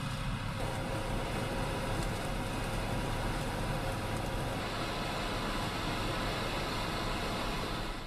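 A combine harvester running steadily as it cuts and threshes a paddy crop. It is a continuous, even engine and machinery drone.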